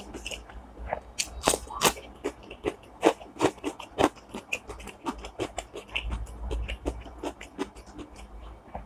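Close-miked eating: irregular crisp crunches and bites with wet mouth sounds, several a second.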